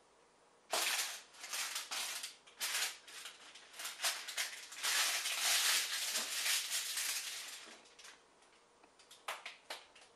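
Parchment paper crinkling in uneven bursts as it is pressed and folded down over the open end of a 3-inch PVC pipe, followed by a few light clicks near the end.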